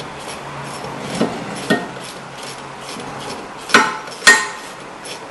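A steel wrench clinking against the brake caliper and its bolts as the caliper bolts are started by hand. There are a few light clicks, then two sharp metallic clinks with a brief ring, about half a second apart, near the end.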